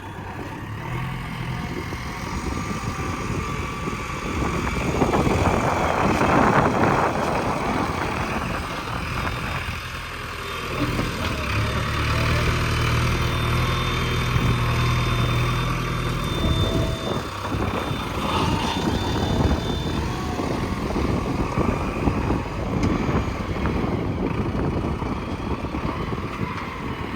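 Backhoe loader's diesel engine running while it works, pulling harder for several seconds in the middle before easing off. A loud rushing noise comes about five seconds in.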